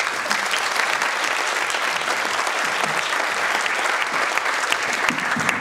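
Audience applauding: many people clapping at once in a steady, even patter that starts all at once.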